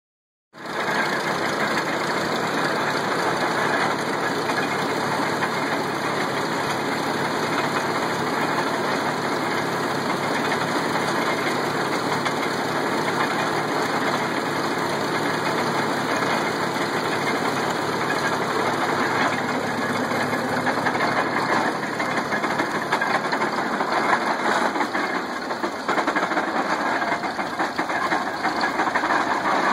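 1953 Farmall Super C tractor's four-cylinder engine running steadily as it drives an early-1900s International Harvester hay press. It starts about half a second in.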